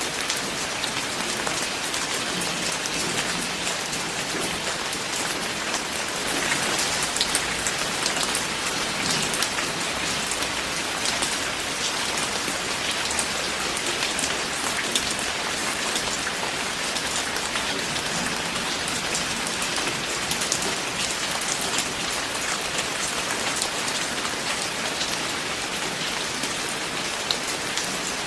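Steady rain falling on a surface, with many distinct drops hitting close by over an even hiss; it swells slightly a few seconds in.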